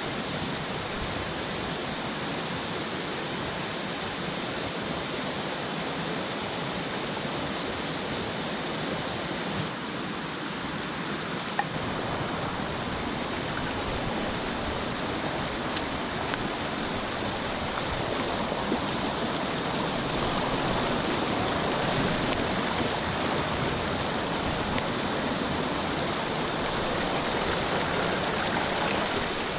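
Shallow rocky river flowing over stones: a steady rush of water that grows a little louder about two-thirds of the way through.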